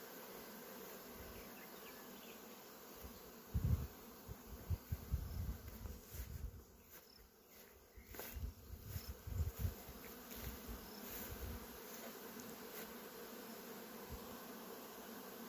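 Steady hum of a great many honeybees flying around the hive entrances of a migratory beehive truck. Loud low rumbling thumps come and go from about three and a half to ten seconds in.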